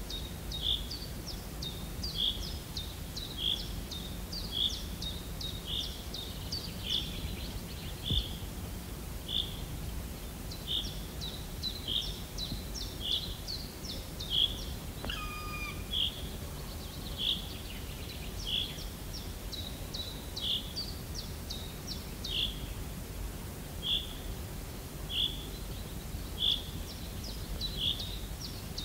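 A bird calling over and over, one short chirp about every second and a quarter with quick higher notes, and once, about halfway through, a different call that drops in steps. A steady low rumble runs underneath.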